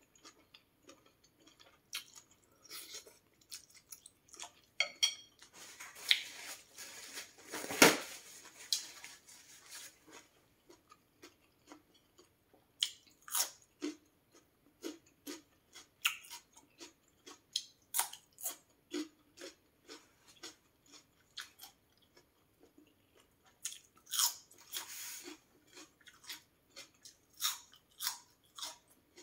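Close-up eating sounds of a person eating noodle soup: chewing and biting with many small clicks of the mouth, and a louder burst about eight seconds in.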